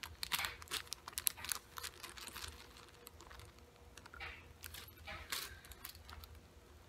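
Cellophane-wrapped sticker pack crinkling and crackling as it is handled and flexed, in quick clusters of sharp little crackles, busiest in the first two seconds and again around four to five seconds in.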